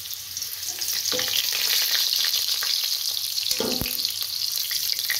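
Potato halves sizzling in hot oil in a karahi: a steady frying hiss. A metal spoon scrapes and clicks against the pan as the potatoes are scooped out, with one louder knock about three and a half seconds in.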